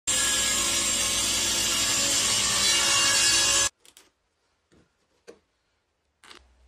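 Table saw blade cutting through a thick block of softwood. It is a loud, steady noise that cuts off suddenly after about three and a half seconds. A few faint taps follow.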